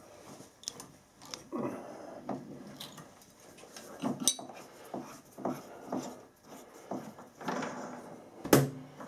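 Split die in a tailstock die holder being turned by hand with a bar, cutting a thread on a stainless steel stud: a run of short scraping strokes with metal clinks, including a sharp clink about four seconds in and another near the end.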